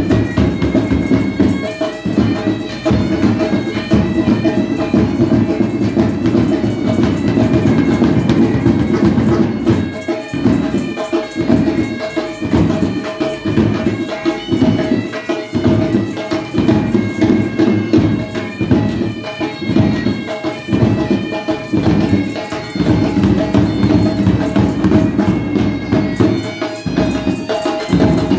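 Pipe band playing: several bagpipes sounding a stepping melody over a steady drone, with drums beating out the rhythm.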